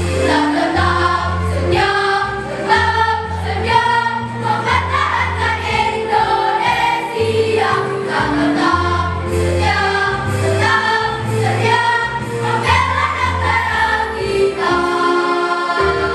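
A school choir singing in parts over an instrumental accompaniment, with low bass notes held and changing about once a second.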